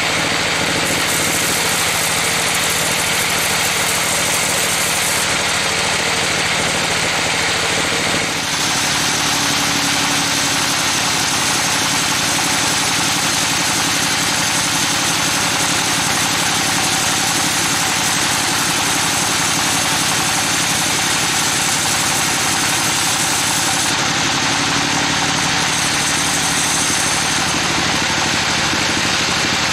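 Band sawmill running, its blade cutting lengthwise through a trembesi (rain tree) log: a steady, dense hiss of the cut over the machine's hum. The sound changes abruptly about eight seconds in.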